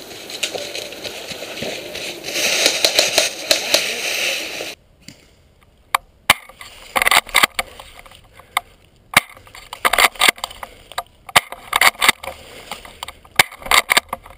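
Dry leaves rustling and crunching under running feet, louder about two seconds in, then stopping abruptly. Quieter scattered sharp clicks and short crackly clusters follow, like leaves crunching under shifting weight.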